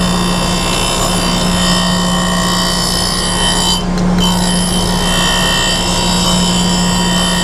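Reid surface grinder running with its abrasive wheel grinding a steel part as the table traverses back and forth: a steady motor hum under the grinding hiss and a few steady high tones. The high hiss drops out briefly about four seconds in.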